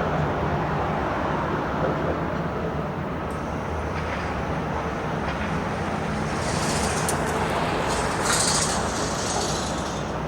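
Construction-site machinery running steadily with a low hum, a hiss joining in higher up over the second half, and a few sharp clicks.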